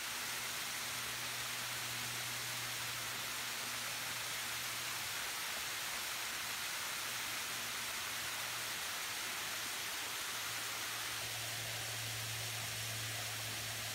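Small waterfall pouring down rock ledges into a pool: a steady, even rush of falling water, with a low rumble underneath that grows stronger near the end.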